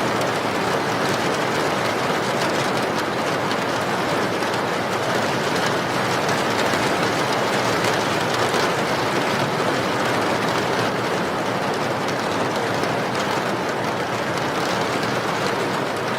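Steady heavy rain, an even, unbroken hiss with no distinct drops or breaks.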